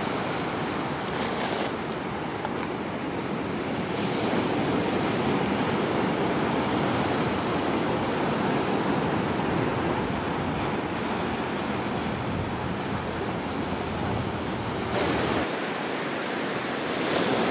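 Ocean surf in a steady rushing wash of breaking waves, with wind on the microphone.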